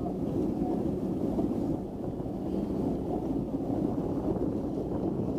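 Flipper 630 HT motorboat moving slowly: a steady low rumble of engine and water, with wind noise on the microphone.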